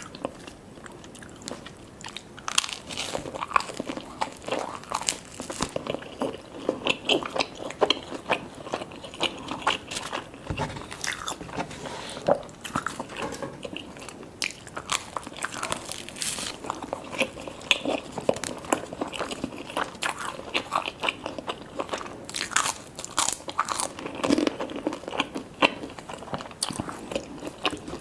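Close-up eating sounds of cheese lasagna and butter garlic toast: a steady run of irregular crunchy bites and chewing, with no talking.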